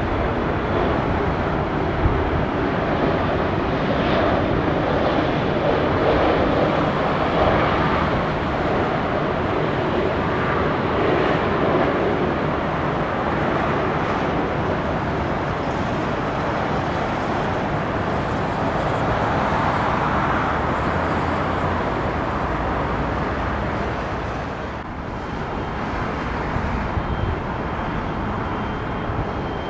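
Jet airliner engines: a continuous loud rush of noise that dips briefly near the end.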